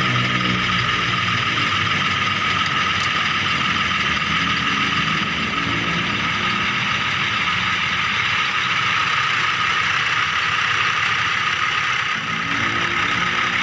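Miniature remote-control toy vehicle running: a steady high electric whine with a low engine-like hum that swells and fades a few times.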